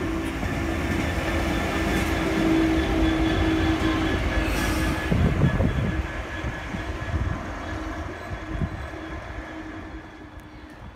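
Freightliner Class 66 diesel-electric locomotive running light engine, with no train behind it. Its two-stroke V12 engine and its wheels on the rails grow louder until it passes about five seconds in, then fade as it moves away.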